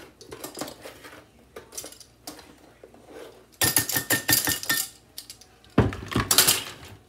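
A spoon scooping brown sugar out of a plastic container and tapping it into a glass measuring cup: a run of scrapes and light clinks, with a louder clatter of spoon on glass about halfway through and another loud rattle of the container near the end.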